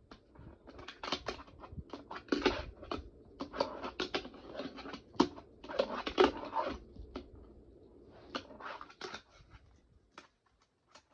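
Plastic fingerboard, with trucks and wheels but no grip tape, clattering and rolling on a plastic skatepark ramp set: a quick string of clicks, taps and short scrapes as tricks are tried, thinning out about nine seconds in.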